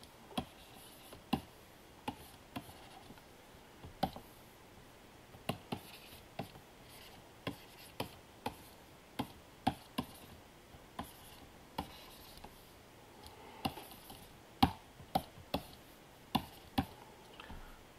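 Stylus pen tapping and stroking on the glass of a Wacom Cintiq pen display while shading: sharp light clicks at irregular spacing, about one to two a second, over a quiet room.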